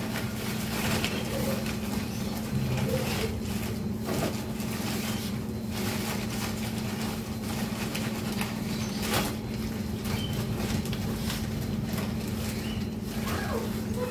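A plastic sack of potting soil being handled and loose soil scooped into a pot, heard as scattered rustles and scrapes, over a steady low hum.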